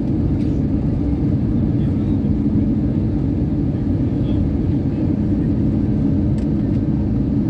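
Passenger jet landing: a steady low rumble of engines and rolling that stays even throughout, with a faint steady hum in it.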